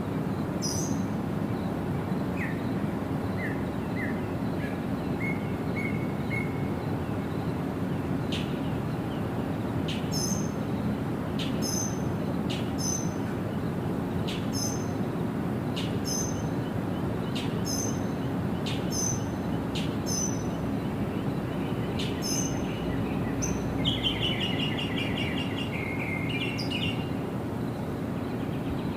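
Wild birds calling over a steady rushing background of water: a few short chirps early on, then a sharp high note repeated about every second for a while, and a longer trilled call near the end.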